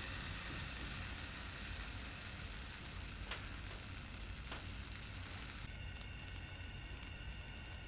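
Pancake batter frying in a nonstick pan: a steady soft sizzle with a couple of faint ticks in the middle. About five and a half seconds in, the sound changes abruptly to a finer crackle of many small ticks as bubbles form on the pancake's surface.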